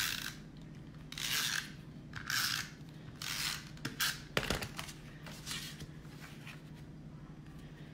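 Adhesive tape runner drawn along the back of a cardstock panel in about five short strokes, followed a little after four seconds by a sharp click and fainter paper rustling as the panel is laid down.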